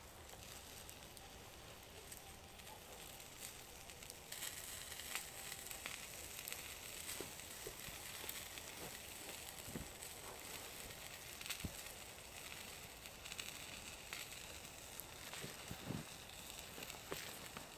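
Wood fire crackling with scattered small pops; a steady high hiss swells about four seconds in.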